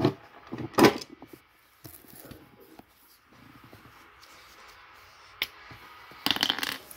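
Handling noise from a phone rubbed and bumped against cloth: a loud rustle about a second in, a single click later, and a short run of rustles near the end.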